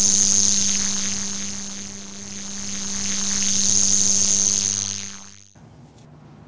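Loud electric buzzing hum: a steady high whine over a low mains-like hum, swelling and fading twice before cutting off sharply about five and a half seconds in. Faint low background noise follows.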